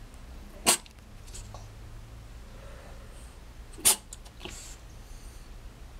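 French Bulldog giving two short, sharp huffs or snorts, about three seconds apart.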